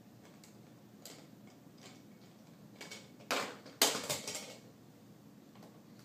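Hard plastic toys clattering as a baby handles them: a few faint taps, then two loud clattering knocks a little over three seconds in, the second with a short rattling tail.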